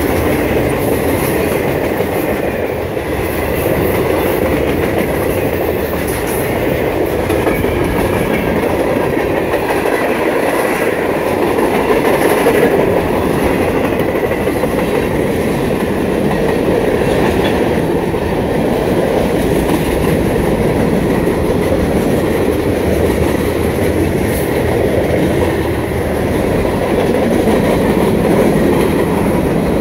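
A CSX freight train's boxcars and covered hopper cars rolling past close by at speed: a steady rumble and clatter of steel wheels on the rails.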